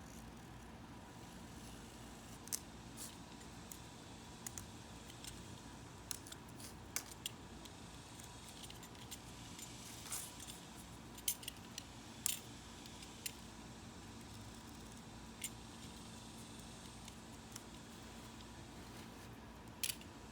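Utility knife trimming excess window screen mesh along the frame: scattered small clicks and scrapes at irregular intervals, over a faint steady hum.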